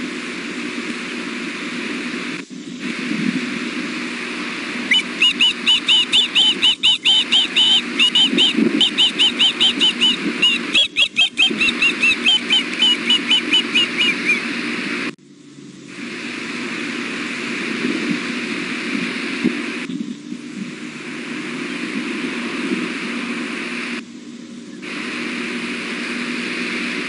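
Juvenile ospreys food-calling (begging for food): a rapid series of high chirps, about four a second, starting about five seconds in and lasting about ten seconds, falling slightly in pitch near the end, over a steady background hiss.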